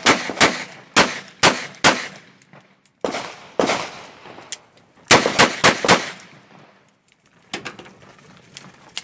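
Smith & Wesson 929 9mm revolver firing a stage string: groups of quick, sharp shots with short pauses between, the fastest run about five shots in a second around the middle, then fainter shots or clicks near the end.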